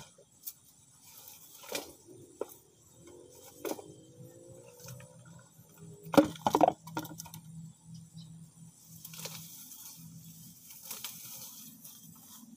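Scattered clicks and knocks of wooden sticks and plants being handled, with rustling, and a louder cluster of knocks about six seconds in.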